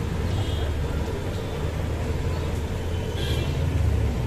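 Street traffic: a steady low rumble of vehicle engines on the road, with two brief high-pitched tones, about half a second in and again a little after three seconds.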